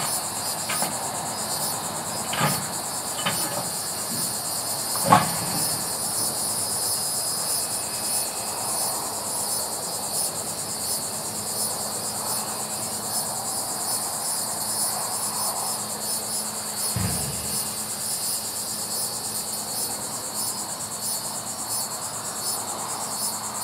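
Steady, pulsing, high-pitched insect chorus with a faint low hum beneath. In the first six seconds a few sharp knocks sound as the grapple truck's claw handles concrete cross ties, the loudest about five seconds in, and there is a dull thud later on.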